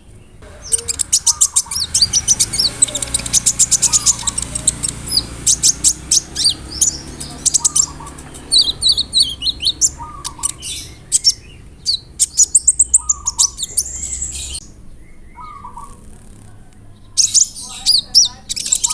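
Kolibri ninja (konin) sunbird singing: a fast rolling string of very high chirps and trills, then broken phrases, a short pause, and another rapid burst near the end.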